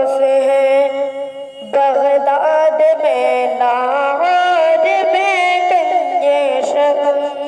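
Wordless sung vocal melody in naat style, with long held notes that glide from one pitch to the next and short breaks between phrases.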